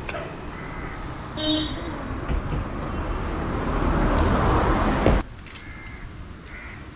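Road traffic noise with a short horn toot about a second and a half in. The noise swells, then cuts off abruptly a little after five seconds, leaving quieter street sound.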